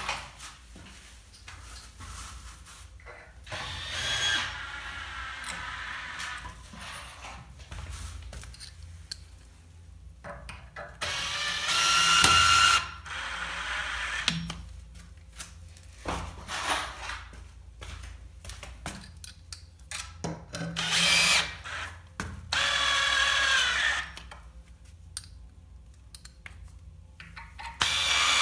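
Electric drill running in about five short bursts of one to two seconds each, its motor whining with each burst, with quieter handling knocks in between.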